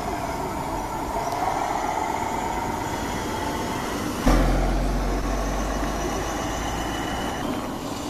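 Motor noise with a wavering whine that rises and falls in pitch. About four seconds in, a louder low, steady hum starts suddenly and then slowly eases off.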